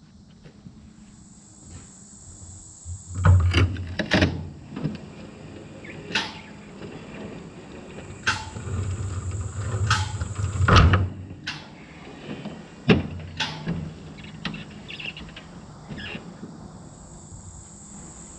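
Hay baler's knotter mechanism being rolled through a full tying cycle: a series of irregular metal clanks, knocks and clicks, a few of them loud. Crickets chirp faintly near the start and end.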